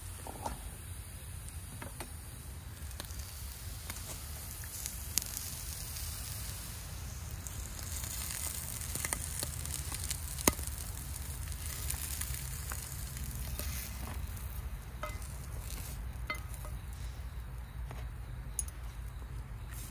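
Food sizzling in a pot on a camp stove, a steady hiss that grows louder for a while about halfway through, with a few sharp clicks scattered through it.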